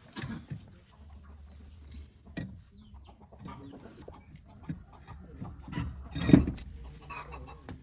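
Scattered knocks and clanks, the loudest about six seconds in, with chickens clucking now and then.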